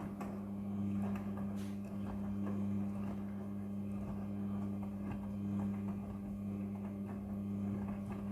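Midea front-loading washing machine running: a steady low hum with faint light clicks, which cuts off suddenly at the very end.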